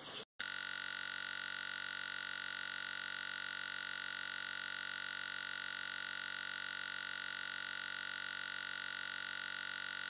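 A steady held electronic synthesizer tone, several pitches sounding together without change. It starts abruptly after a moment of silence and cuts off suddenly.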